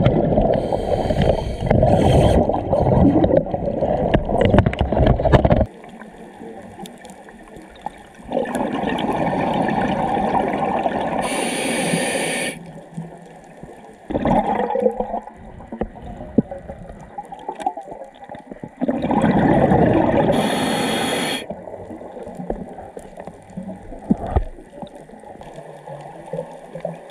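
Underwater breathing through a scuba regulator. Several long, bubbling, rumbling exhalations come in slow spells a few seconds apart, with a short high hiss twice, near the middle and again later.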